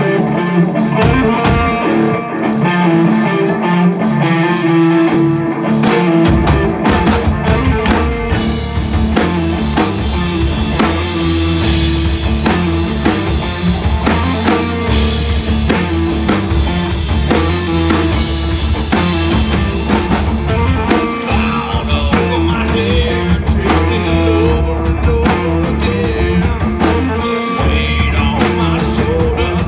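Live rock band playing loudly: electric guitars, bass guitar and drum kit. The deep bass comes in heavily about six seconds in and stays under the rest of the song.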